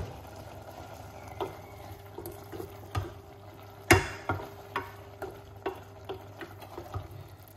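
Wooden spoon stirring vegetables in a stainless steel saucepan, knocking against the pan in sharp clicks, about two a second in the second half, the loudest about four seconds in, over the vegetables' gentle sizzle.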